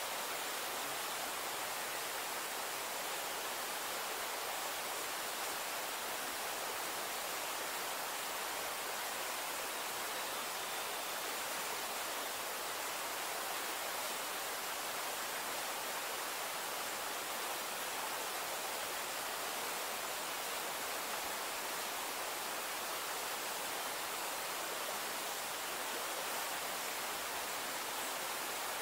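Forest ambience: a steady, even hiss with no bird calls or other distinct events.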